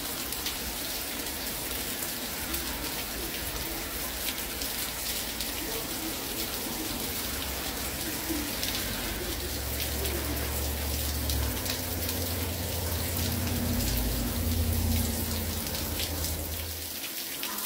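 Steady rain falling, with many individual drops hitting close by. A low rumble comes in about halfway through, swells, and stops shortly before the end.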